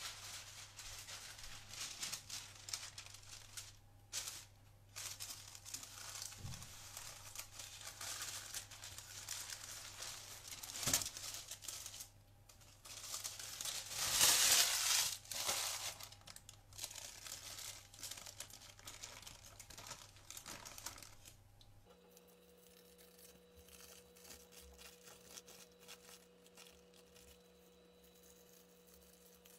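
Baking parchment paper crinkling and rustling as it is handled over and peeled off a warm sponge cake sheet, loudest about halfway through. After about 22 s the crinkling goes much quieter over a faint steady hum.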